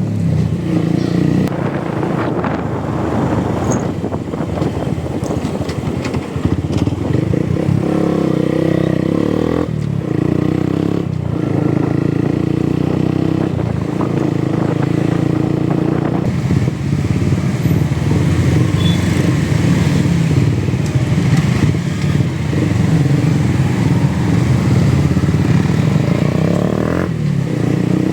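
Motorcycle engine running steadily under way, its note dropping out briefly about ten, eleven, sixteen and twenty-seven seconds in.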